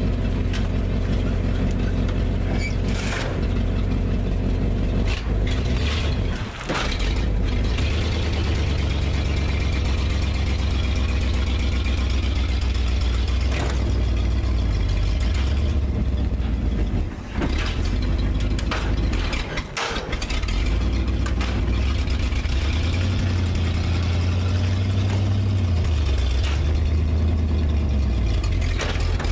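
Large truck's engine running under load as it pulls a stuck car by a tow strap, with a few brief dips where it lets off, at about 6 seconds in and twice between 17 and 20 seconds.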